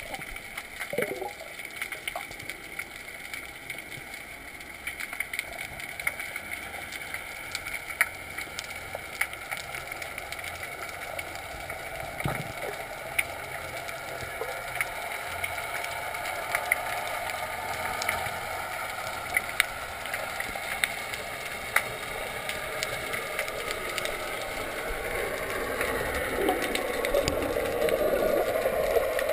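Underwater ambience heard below the surface: a steady watery hiss with many scattered sharp clicks. In the last few seconds it grows louder and bubbly as a snorkeler's bubbles stream past.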